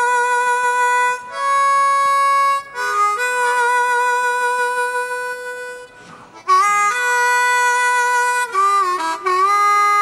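Solo blues harmonica played close into a microphone: long held notes, breaking off briefly about a second in and near three seconds, dropping away near six seconds, then coming back with bent, sliding notes.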